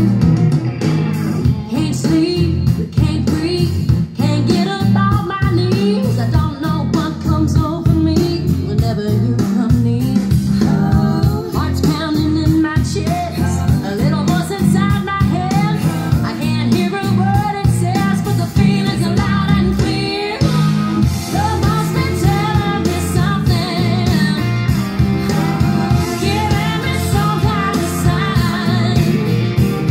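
A song with singing over guitar and a steady beat, played back through a pair of Wharfedale Diamond 8.2 bookshelf speakers driven by a Technics SU-Z2 amplifier from a Yamaha CDX-390 CD player.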